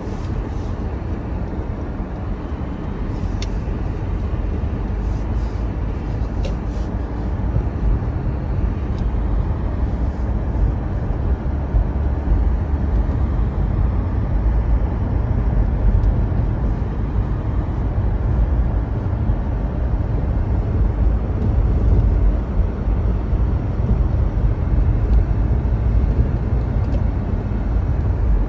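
Inside a moving car on a snow-covered road: a steady low rumble of tyres and engine, growing a little louder about eight seconds in. A few faint clicks come in the first several seconds.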